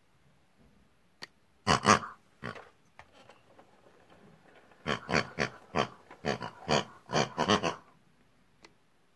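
Short pig-like oinks and grunts: a couple about two seconds in, then a quick run of about nine between five and eight seconds.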